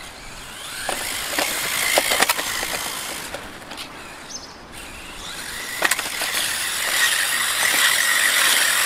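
ZD Racing EX-16 1/16-scale brushless RC drift car driving over stone paving: a steady hiss of tyres on stone with a thin motor whine and sharp clicks over the joints, louder about two seconds in and again toward the end as the car comes near.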